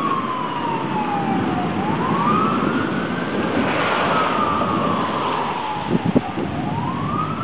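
Outdoor tornado warning siren wailing, its pitch slowly falling and rising over several seconds, sounding the alert for a funnel cloud. Two short knocks about six seconds in.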